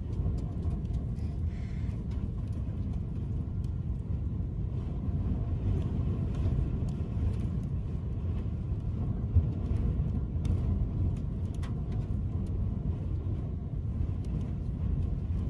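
Strong dust-storm wind buffeting a vehicle, heard from inside as a steady low rumble, with a few sharp ticks of blown grit and debris striking it.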